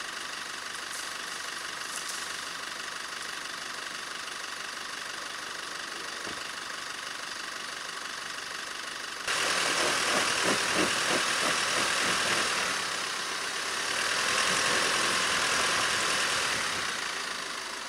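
Chevrolet Colorado ZR2 pickup idling in four-wheel-drive low, then about nine seconds in it is given throttle and a loud hiss of spinning tyres on leaves and dirt comes in, easing briefly, rising again and stopping near the end. The tyres, at a full 34 psi, are losing traction on the steep rutted climb.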